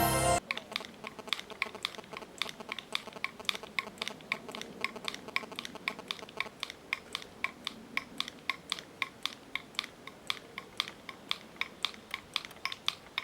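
Music cuts off just under half a second in, then a run of light, sharp clicks, about four to five a second, slightly irregular.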